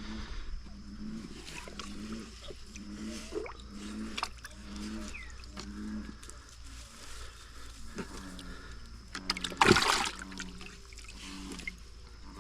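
A low animal call repeating steadily, about one short call every two-thirds of a second, with faint water sloshing; near ten seconds in there is a sudden loud splash or thrash.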